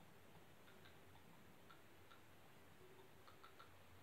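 Near silence: room tone with faint, irregularly spaced ticks.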